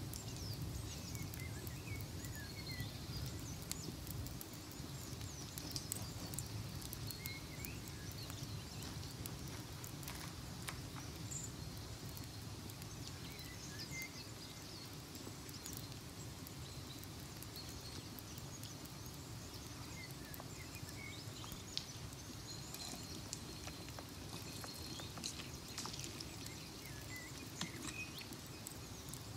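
Ambience of a crackling fire: a steady low rumble with irregular sharp crackles and pops, and a few faint bird chirps.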